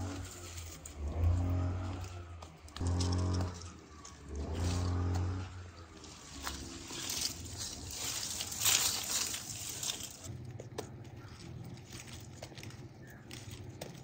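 An animal gives four low calls in quick succession, each about a second long. Rustling and a few knocks follow.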